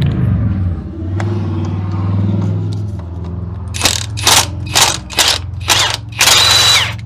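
An impact wrench fires in short bursts, five quick ones and then a longer run near the end, spinning nuts off the front hub of a 1994 Ford Ranger. Under it is a steady low rumble.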